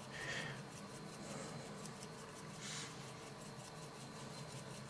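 Faint, soft hissing rustles of a spice shaker being shaken, sprinkling dry rub onto raw duck breast, the strongest a little under three seconds in.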